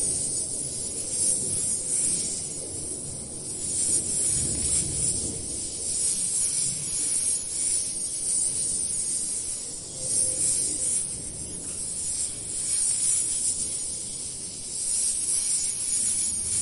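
Outdoor ambience: a steady high-pitched hiss over a low rumbling noise that swells and fades every few seconds.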